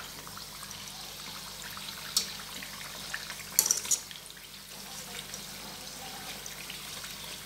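Potato and wheat-flour snacks deep-frying in hot oil in an iron kadai, a steady sizzle. A metal skimmer clinks against the pan once about two seconds in and again in a short cluster a little past three and a half seconds.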